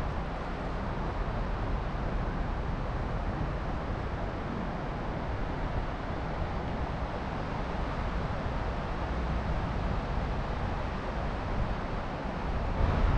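Steady wind buffeting the microphone, a constant low rumble and hiss with no change.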